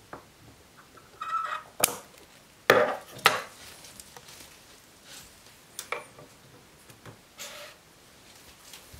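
Handling noises of hard objects: a short rustle, then three sharp clacks in quick succession as things are set down or knocked together, followed by a few softer taps.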